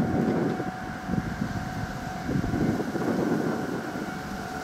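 Wind buffeting the microphone in uneven gusts, over a faint steady high hum.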